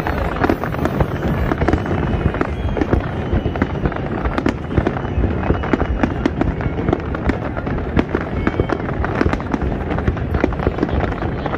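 Fireworks display in a heavy barrage: many shells bursting at once, giving a continuous rapid popping and crackling over a steady low rumble.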